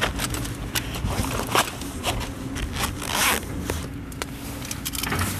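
A zipper pulled in several short runs, with fabric being handled between them.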